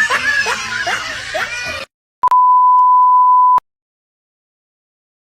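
A mix of voices and music cuts off abruptly, and a moment later a single steady high beep sounds for about a second and a half, the pure 1 kHz tone used as a censor bleep.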